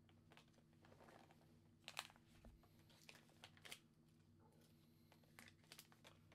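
Quiet handling of trading cards and packaging: faint rustles and a few light clicks, the loudest about two seconds in, over a steady low hum.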